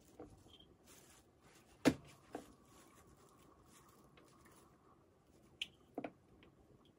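Kitchen knife slicing through carrot and knocking on a wooden cutting board: two sharp knocks about two seconds in, and two more near the end.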